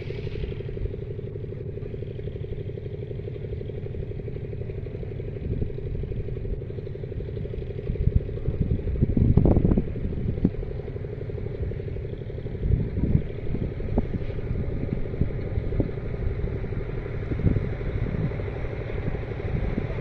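A steady low mechanical drone, an engine running, holding one pitch throughout. A few short louder low rumbles, the biggest about halfway.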